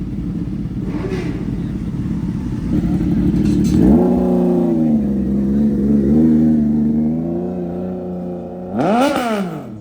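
CFMoto 675SR-R's inline three-cylinder engine through an Austin Racing full exhaust system. Its revs climb about four seconds in and hold, then a quick rev up and back down comes near the end.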